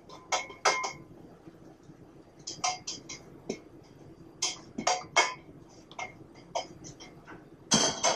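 Cooking utensil clinking and tapping against a pan and plate in scattered light strikes, as cooked portobello mushrooms are lifted out and set aside, with a longer scrape near the end.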